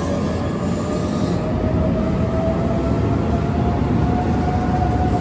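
Keihan 9000 series electric train pulling away from the platform: a steady rumble of wheels and running gear, with a thin electric whine from the drive that slowly rises in pitch as the train gathers speed.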